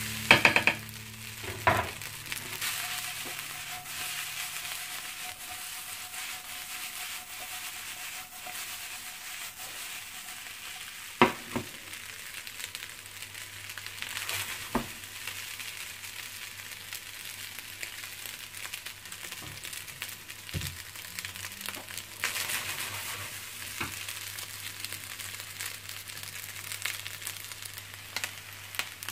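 Fried rice sizzling steadily in a nonstick frying pan as a spatula stirs and turns it. A few sharp knocks of the spatula against the pan come at irregular moments.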